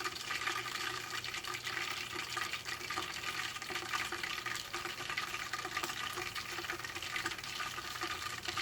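Hot oil in a deep fryer sizzling and crackling steadily around a pre-made hamburger patty with a slice of Monterey Jack cheese on it.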